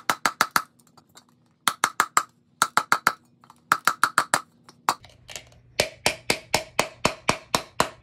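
A mallet hammers the bottom of a tin can held over a wooden handle, doming the can's base. It comes as quick bursts of five or six knocks, then from about six seconds a steady run of about four knocks a second with a lower ring.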